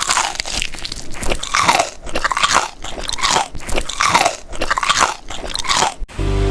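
Close-up chewing of a bite of luncheon meat egg sandwich, a crackly stroke about twice a second, cut off abruptly near the end.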